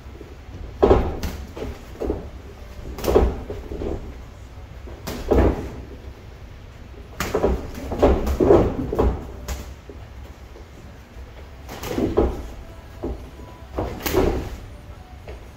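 Boxing gloves landing on gloves and headgear in light sparring: scattered thuds, often two or three in quick succession, with gaps of a second or more between exchanges.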